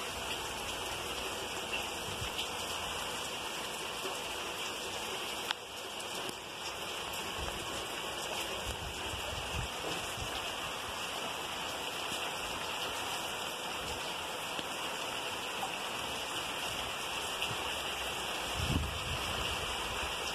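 Heavy rain falling steadily on vegetation and open ground, a dense even hiss. A couple of brief low thumps sound near the end.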